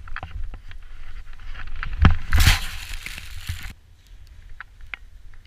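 Riding down through deep powder snow, heard on a body-worn camera: a steady low wind buffeting on the microphone with scattered clicks and knocks, and a loud rushing hiss of snow about two seconds in that cuts off suddenly short of four seconds.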